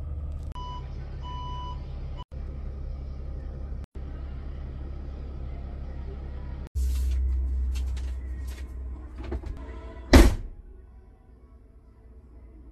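Mercedes-Benz camper van engine running low and steady as the van creeps into a parking bay, with a few short electronic beeps about a second in. About ten seconds in there is one brief loud burst, after which the engine hum drops away.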